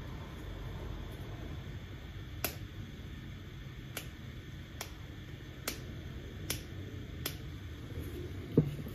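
Sharp plastic clicks, about six of them roughly once a second, starting a couple of seconds in, as a small support is picked and flexed off an ABS 3D-printed part by hand, over a steady low hum.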